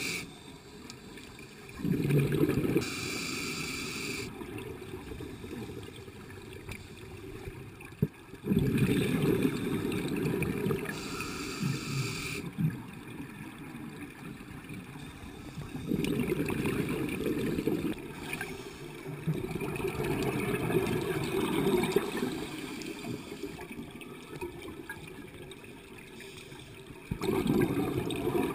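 Scuba regulator breathing underwater: several slow breaths, each a hiss on the inhale and a few seconds of bubbling gurgle as the exhaled air escapes.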